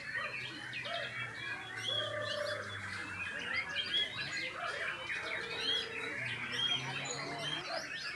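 Many male white-rumped shamas (murai batu) singing at once: a dense, unbroken chorus of overlapping chirps, trills and whistles.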